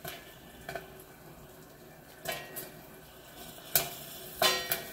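First kernels popping in the Great Northern GNP-800 popcorn machine's stainless steel kettle: about half a dozen scattered sharp pops that get louder toward the end, showing that popping is just starting.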